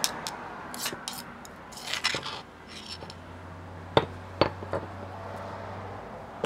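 Metal spoon scraping and tapping pounded chili-garlic paste off a stone pestle into a bowl, a series of light clicks and scrapes. About four seconds in, a couple of sharper stone knocks as the pestle is set back into the stone mortar.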